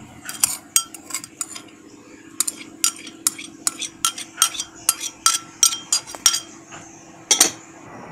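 Metal spoon tapping and scraping against white ceramic bowls, scraping minced garlic and chilli from one bowl into another: a quick run of light clinks and taps, with one louder knock near the end.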